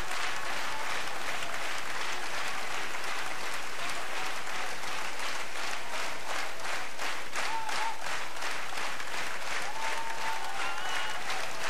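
Concert audience applauding steadily, a dense mass of hand claps.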